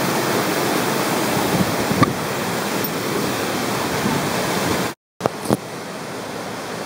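Waterfall rushing steadily close by, with a sharp click about two seconds in. Near five seconds the sound cuts out for a moment, then the rush continues a little quieter.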